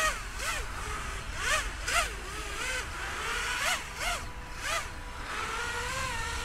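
FuriBee DarkMax 220 racing quad's brushless motors and propellers whining on a 5S battery, the pitch jumping up and falling back in quick surges about seven times as the throttle is blipped.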